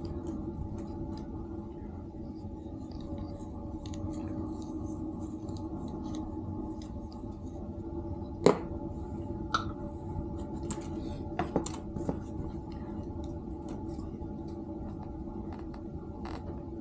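Small clicks and knocks of PVC pipe fittings and a can of PVC primer and cement being handled as a cap is primed and pushed onto a pipe. The sharpest click comes about eight and a half seconds in, with a few lighter ones over the next few seconds, all over a steady hum.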